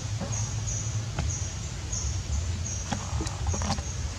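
Outdoor forest ambience: a high chirping call repeating about twice a second over a steady low rumble, with a few sharp clicks and knocks as a young macaque handles halved jackfruit on the stone.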